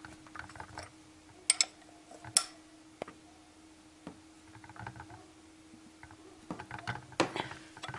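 Open-end spanner on the camshaft pulley bolt of a VAZ-2111 eight-valve cylinder head, clicking against the metal as the camshaft is turned by hand to line up the timing mark. A few sharp metallic clicks, the loudest about one and a half and two and a half seconds in, over a faint steady hum.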